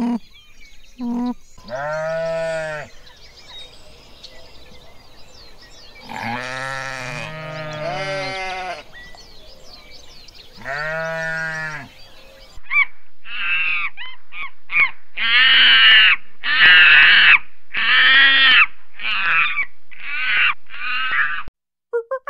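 Bleating farm animals. A few long, wavering bleats come first. From about halfway there is a quick run of about ten shorter, louder calls that stops just before the end.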